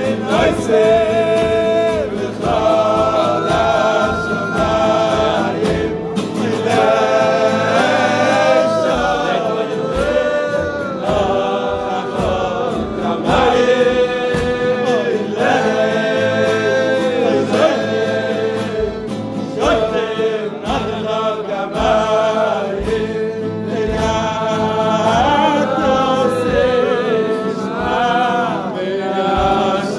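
Men singing a Jewish niggun together at a kumzitz, a flowing melody with long held notes. A steady low beat of about two strokes a second runs underneath.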